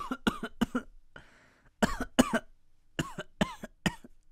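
A person coughing in three quick fits of four or five short coughs each, with a breath drawn in between the first two fits.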